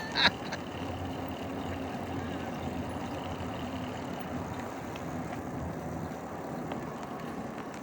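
Steady rolling noise of an e-bike ridden along a path, with a faint steady hum underneath.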